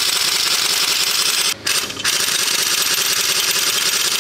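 Pneumatic impact wrench hammering through a welded-up socket tool on the hub nut of a Panzer I road wheel, trying to spin the stuck nut off. It runs as a steady rapid rattle, stops briefly about a second and a half in, then starts again.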